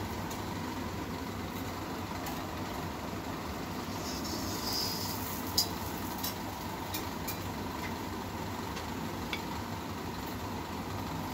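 Steady low background rumble with a few light clicks and taps about halfway through.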